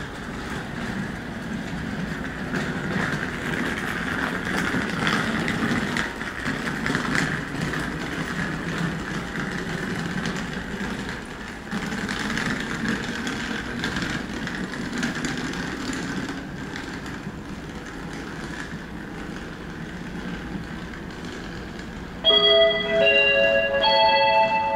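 JR Hokkaido 789 series electric train running slowly toward the platform, a steady noise of wheels on rails and motors. About 22 seconds in, a short multi-note station chime sounds from the platform speakers, the signal that precedes an arrival announcement.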